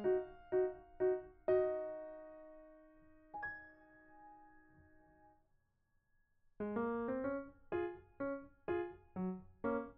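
Background piano music: a few notes, then a held chord that fades away, a brief pause, and then a bouncy run of repeated notes at about two a second.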